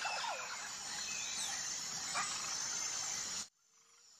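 Outdoor ambience: a steady hiss with a few faint chirps, cutting off abruptly about three and a half seconds in to near silence.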